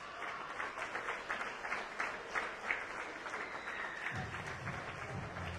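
Stadium crowd applauding a try as it is scored: a dense patter of many hands clapping. A lower murmur joins about four seconds in.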